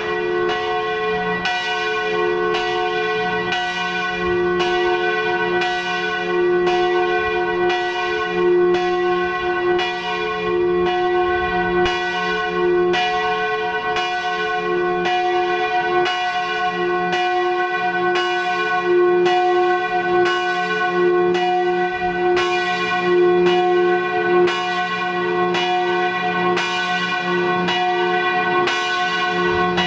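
Church bells ringing, struck about once a second with each stroke's hum carrying over into the next.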